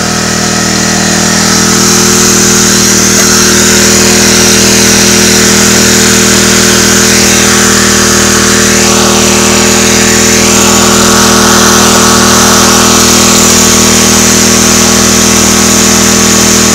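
Small gasoline engine of a 2.5-inch gold dredge running steadily and loud, driving the dredge's pump.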